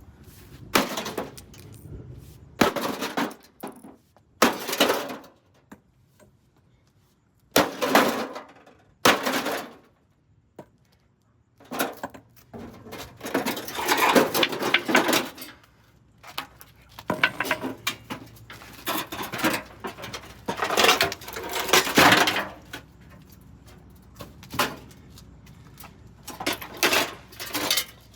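An old RV microwave oven being smashed apart: a series of hard blows with clattering and breaking of its parts, some single hits and some longer bursts of rattling debris, with short pauses between.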